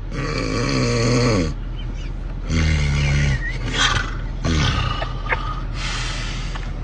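A person snoring loudly: four snores in quick succession, the first sliding down in pitch, over a steady low hum.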